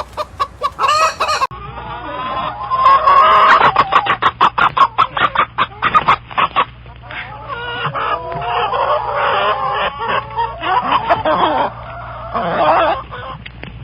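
Domestic chickens clucking: quick runs of short, sharp clucks, then longer wavering calls. The recording cuts to another shot about a second and a half in.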